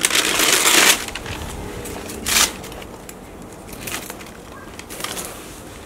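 Masking tape and newspaper masking being peeled and pulled off a spray-painted scooter seat. There is a loud tearing rustle in the first second, another shorter one about two seconds in, then quieter paper rustling and small clicks.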